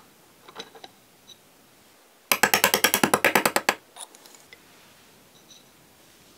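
A quick, even run of about fifteen sharp taps lasting about a second and a half, starting about two seconds in: a wooden stick tapping a cylinder liner down into its bore in the metal block of a Toyan FS-L400 mini four-cylinder engine to seat it. Light metal clicks of the parts being handled come before and after.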